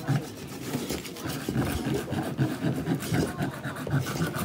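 Hand tools rasping on wood in quick, uneven back-and-forth strokes.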